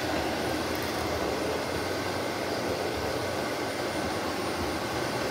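Shark Navigator Lift-Away Professional upright vacuum cleaner running steadily, its motor giving an even whoosh of air as it is pushed under furniture.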